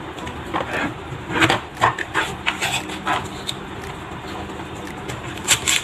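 Irregular knocks and clicks of food preparation at a kitchen counter, things being handled and set down around a plastic cutting board, with a louder pair of knocks near the end over a faint steady hum.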